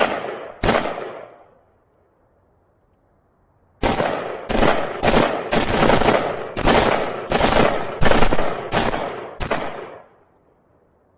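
Two gunshots in quick succession. About two seconds later comes a steady string of about a dozen semi-automatic shots at roughly two per second, each with a short trailing echo.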